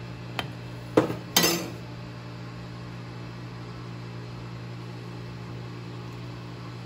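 Dishes clinking: a spoon and bowl knocking against a glass plate, three quick knocks within the first two seconds, the last a brief rattle. A steady low hum runs underneath.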